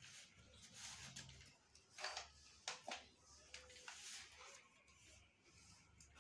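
Near silence, with faint scratching of a pencil on notebook paper and a few light clicks and taps around two to three seconds in.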